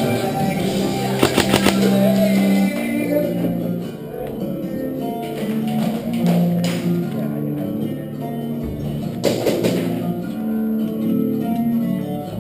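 Guitar-led music with a steady run of pitched notes, broken by short clusters of sharp clicks about a second in and again around nine seconds in.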